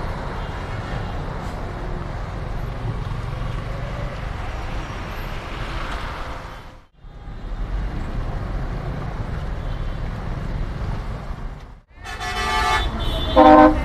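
Road traffic noise in a slow jam: a steady low rumble of engines. Near the end a vehicle horn toots a couple of times. The sound drops out briefly twice.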